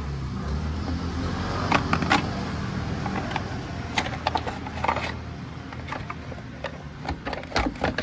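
Plastic engine cooling shroud being worked loose and pulled off a scooter's cylinder head: scattered knocks and plastic clatters, several of them close together near the start, midway and near the end, over a steady low hum.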